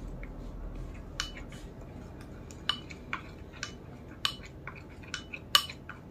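A spoon clinking against a small bowl while stirring a paste of gram flour, coffee powder and water: irregular sharp taps, one or two a second.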